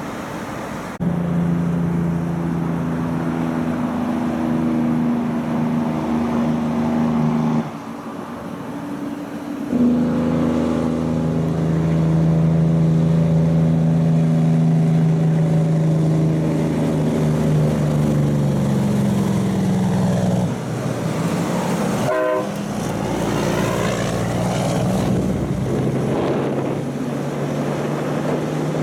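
Heavy diesel truck engine, a Cummins in a cab-over log truck, pulling steadily on the highway with a strong low hum of harmonics; its revs sag slightly about two-thirds of the way through, and the sound breaks off abruptly a couple of times.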